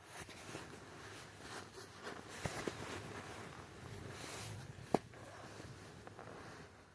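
Faint rustling handling noise with a few sharp clicks, the loudest about five seconds in.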